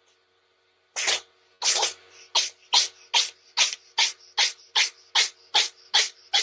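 A cat sneezing in a rapid, regular run of sharp sneezes: two longer ones about a second in, then about two and a half a second without a break.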